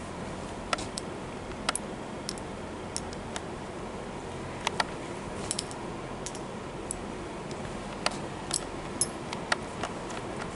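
Steady background hiss of a room with about a dozen sharp, irregularly spaced clicks and ticks.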